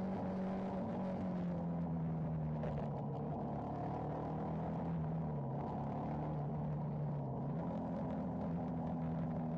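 Benelli TNT 125's single-cylinder 125 cc four-stroke engine heard onboard while riding: its exhaust note falls slowly for the first five or six seconds, rises again around seven seconds in, then eases down.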